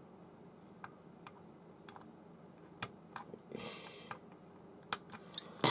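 Scattered small clicks and taps of the metal parts of a Tailwalk Wide Basal spinning reel being handled during reassembly, with a brief rustle about midway. The clicks come closer together and louder near the end.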